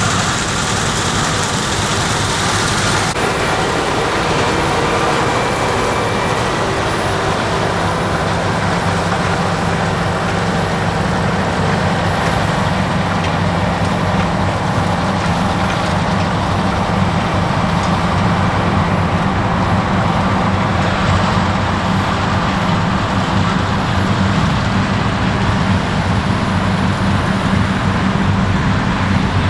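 Heavy farm-machinery diesel engine running steadily, a continuous low drone. A high hiss above it stops abruptly about three seconds in.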